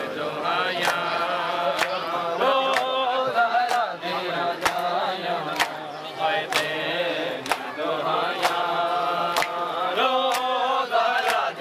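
Male voices chanting a noha, with a sharp slap of chest-beating (matam) landing about once a second in a steady rhythm.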